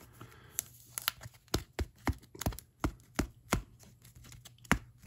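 A run of light, sharp plastic clicks and taps, about three a second, with a short gap near the end, as football trading cards are sleeved and slid into a rigid plastic toploader.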